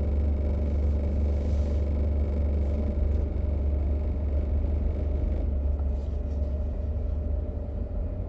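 Car running at low speed or idling, heard from inside the cabin as a steady low rumble.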